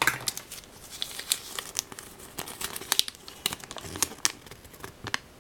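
Crinkling and rustling of the small wrapper and leaflet from a Kinder Surprise toy capsule being unfolded and pulled open by hand, an irregular run of crackles and small clicks.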